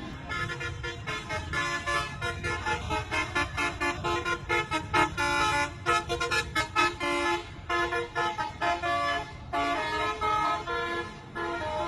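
Bus telolet horn playing a rapid tune of short, changing notes, with a couple of brief breaks near the end, over a low traffic rumble.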